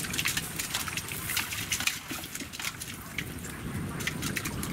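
Shallow pond water splashing and slopping in quick, irregular small splashes as hands grab prawns and fish out of a cast net.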